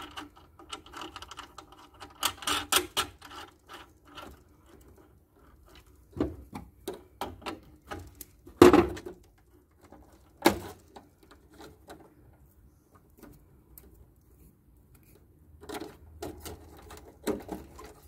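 Hands handling a cable and its fittings inside an electrical control panel: scattered clicks, taps and rustling, with a few louder knocks, the loudest about nine seconds in.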